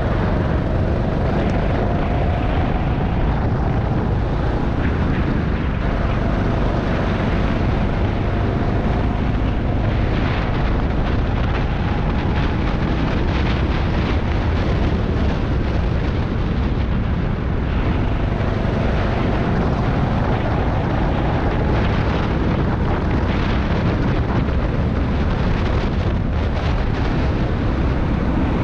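Rental go-kart engine running at race pace, its pitch rising and falling as the kart accelerates and slows through the corners, under heavy wind noise on the microphone.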